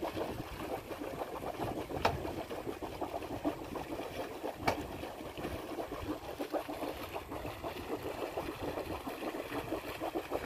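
Water gurgling and splashing against a boat's hull on a calm fjord, a steady wash of noise. Two sharp knocks come through it, about two seconds in and again about three seconds later.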